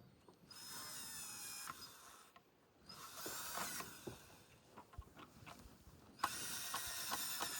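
Power drill driving a screw: a couple of short runs of the motor whining and spinning down, then a rapid, loud clicking clatter starting near the end.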